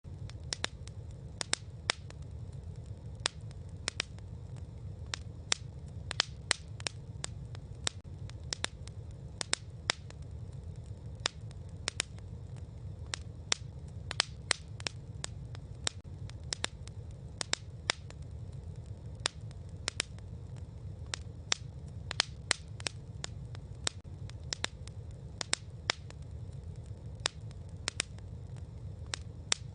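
Campfire crackling: irregular sharp pops and snaps, sometimes several in a second, over a steady low rumble.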